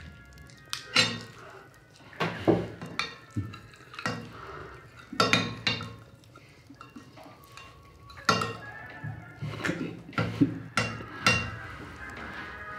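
Metal spoon clinking against a plate and tableware knocking on a wooden table during a meal, a handful of sharp clinks spread through, with faint music underneath.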